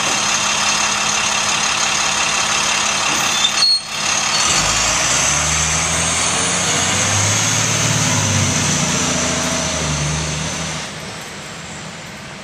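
IC CE 300 school bus engine idling, then a brief sharp burst about three and a half seconds in. The engine then revs up and down through its gears as the bus pulls away, and fades near the end as it drives off.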